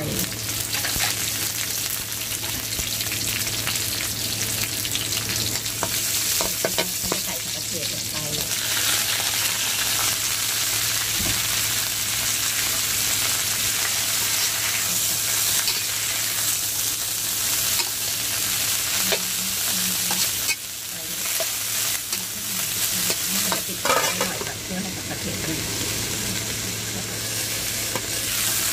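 Water mimosa and garlic sizzling in an aluminium wok while a metal spatula stirs and scrapes against the pan, over a steady low hum.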